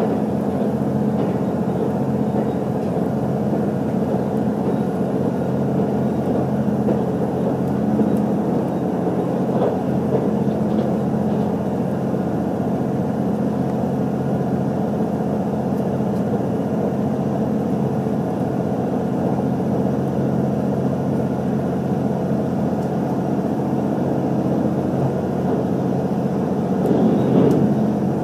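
Cabin noise inside an HC85 series-hybrid diesel railcar running at speed: a steady drone with several steady low tones from the engine-generator and drive, under wheel-on-rail noise.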